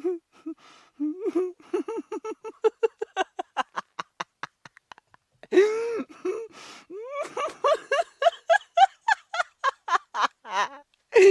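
A single person laughing hard in two bouts of rapid "ha-ha-ha" pulses, with a gasping breath between them; the second bout climbs in pitch.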